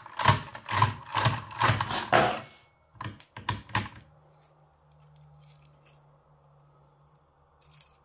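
Fiam Iseo 6+6 lever mortise lock worked with a lockpick, its bolts being thrown out: a run of about six loud clacks, then four sharp clicks. A few faint clinks near the end as keys are handled.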